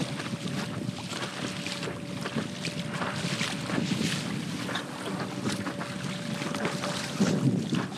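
Electric SUP board under way on choppy water: a steady whine from its Flipsky 6374 brushless motor over water splashing against the board and wind on the microphone.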